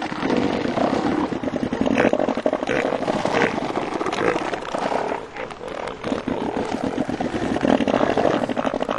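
Southern elephant seal bulls roaring with open mouths, a deep guttural call made of a rapid run of pulses that goes on almost unbroken and eases briefly about five seconds in. These are the threat calls of rival bulls fighting over females.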